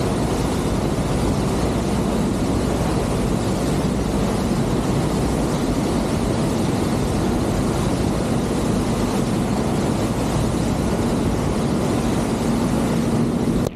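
Fast passenger ferry under way at speed: a steady rushing noise of engine drone, wind and churning wake water.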